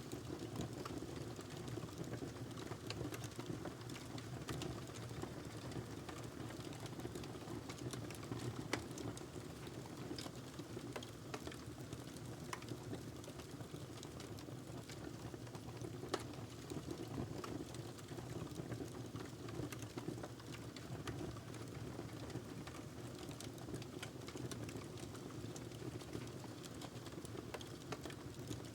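Wood fire burning in a fireplace: a steady low rumble of flames with frequent irregular crackles and pops, a few sharper pops standing out.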